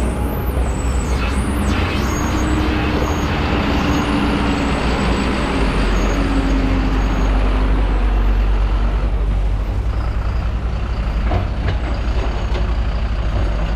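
Heavy diesel engines of a hydraulic excavator and a loaded dump truck running, a steady loud low rumble as the excavator loads and the full truck pulls away.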